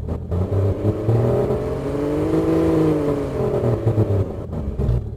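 Car engine sound played back through the AudioMotors plugin, revving up smoothly and back down. The pitch peaks about halfway through.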